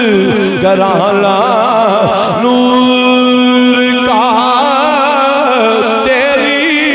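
A man sings a qaseeda, drawing out the word 'gharana' in a long run of wavering, ornamented notes. He holds one steady note in the middle, then returns to the wavering line.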